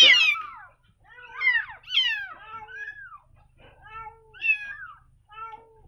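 Very young kittens, eyes not yet open, mewing in about seven short, high cries that each fall in pitch. The first cry is the loudest. These are the hungry cries of orphaned kittens being bottle-fed milk.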